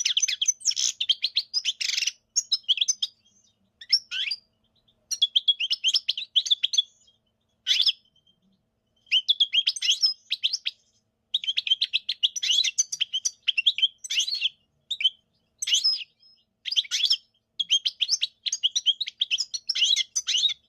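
European goldfinch singing: bouts of rapid, liquid twittering and trills, broken by short pauses.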